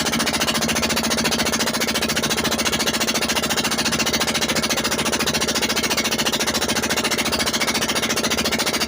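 Motorized bangka boat engine running hard and steady, a fast, even chugging with a constant hum underneath.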